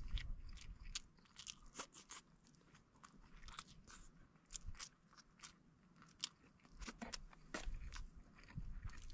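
Someone eating grilled chicken wings close to the microphone: faint, irregular biting and chewing with small crunchy clicks.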